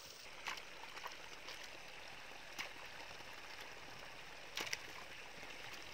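Faint, steady rushing of running water, with a few scattered light taps.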